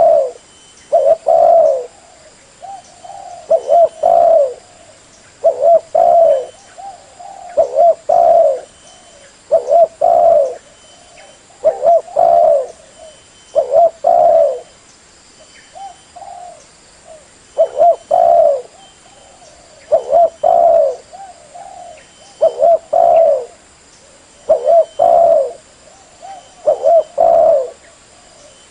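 Spotted dove (derkuku) cooing: a short phrase of two or three low coos, repeated about every two seconds.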